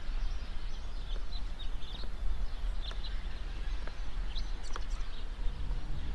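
Birds chirping in short scattered calls over a steady low background rumble. Soft music with sustained tones fades in near the end.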